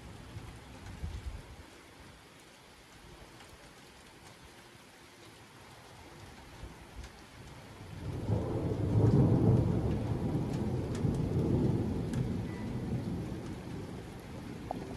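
Steady rain with a long rolling peal of thunder that breaks out about halfway through, loudest just after it starts, then rumbles on and fades over several seconds.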